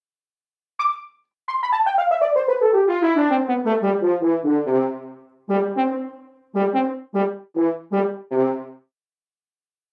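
Sampled brass from an SF2 soundfont: one short high note, then a fast run of notes falling steadily from high to low, then six short, detached stabs.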